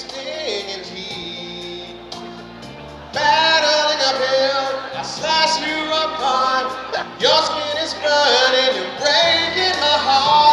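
A man sings a love ballad into a microphone over musical accompaniment. The accompaniment is quieter for the first few seconds, and the voice comes in loudly about three seconds in, with long held, wavering notes.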